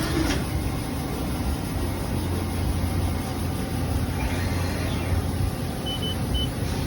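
Haas EC-300 horizontal machining center running under power with a steady low hum. About four seconds in, a faint whine rises and falls, and near the end come three short high beeps.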